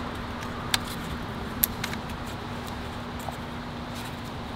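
A few light clicks and taps of a wiring harness and its plastic clips being handled and pushed into place in an engine bay, the two sharpest about a second apart near the start, over a steady low hum and hiss.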